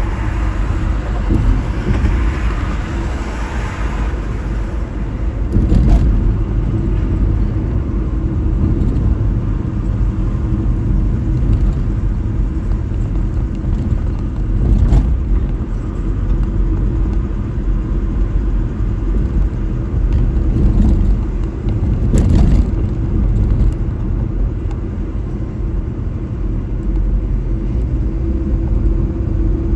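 Steady low rumble of a car driving along an expressway: road and tyre noise with engine hum, plus three short louder noises about 6, 15 and 22 seconds in.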